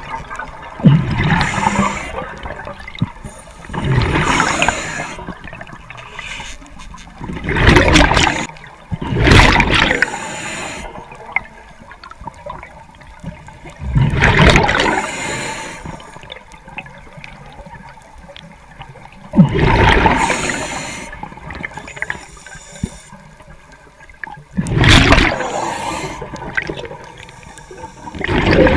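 A diver breathing through a regulator underwater: bursts of exhaled bubbles gurgle and rush past the microphone every four to six seconds, with quieter stretches between breaths.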